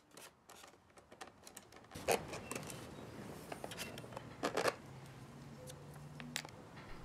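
A few light clicks and taps of small metal parts being handled: the aluminium-tube ends of carbon-fibre arrow-shaft struts knocking against aluminium brackets as they are fitted. Two sharper taps stand out, about two seconds in and again about four and a half seconds in.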